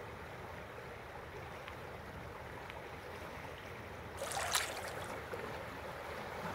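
Steady rushing of a flowing river, with a brief hissing burst about four and a half seconds in.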